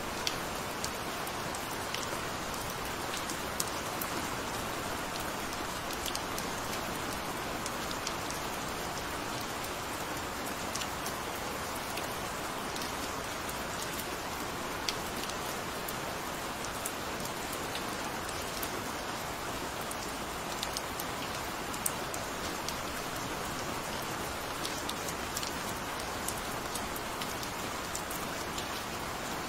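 Steady gentle rain: an even hiss of rainfall with many scattered, sharp drop ticks.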